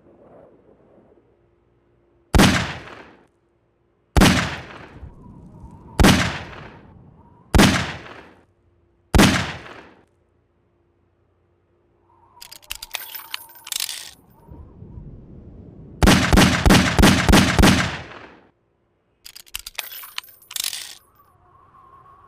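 Taurus Tracker Model 617 .357 Magnum revolver firing: five single shots, each about a second and a half to two seconds apart. Then comes metallic clicking and clatter, then about seven shots in quick succession over two seconds, and more metallic clicks near the end.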